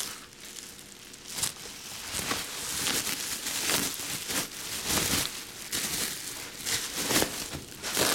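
Plastic bubble wrap being handled and bunched, giving irregular crinkling and crackling rustles.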